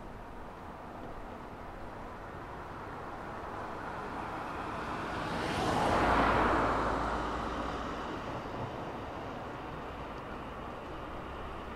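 A single road or rail vehicle passing along a city street, its rolling noise swelling to a peak about halfway through and then fading away, over a steady background of distant traffic.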